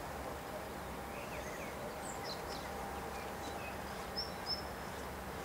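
A few short bird chirps over a steady low background rumble and hum.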